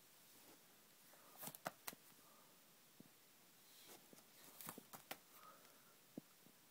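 Faint clicks and soft rustles of plastic binder pages being handled and turned, in two short clusters about a second and a half in and again around four to five seconds in.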